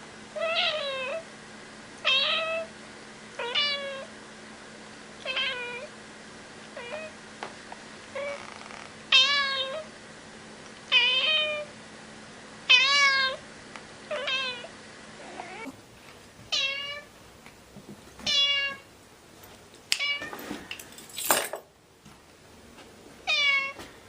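Kitten meowing over and over, one short high-pitched meow every second or two. Near the end there are a few clicks and a sharp knock.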